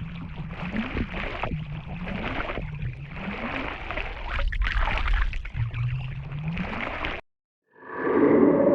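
Water bubbling and gurgling, with low tones that rise in pitch roughly once a second. It cuts off suddenly near the end, and after a brief silence a different sound effect starts.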